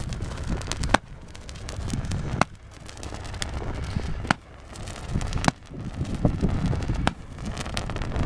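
Consumer fireworks shooting up into the sky, with a sharp pop about every second or so (roughly six in all), over a low rumble of wind on the microphone.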